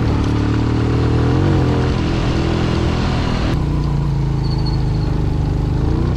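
Motorcycle engine running under way, holding a fairly steady note with a brief rise in pitch about a second and a half in. A rushing noise above the engine falls away about three and a half seconds in.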